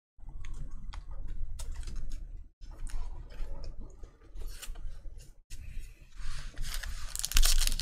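Basketball trading cards being handled and flipped through by hand: a run of small clicks and slides of card stock. From about six seconds in comes a louder, denser rustling and crinkling.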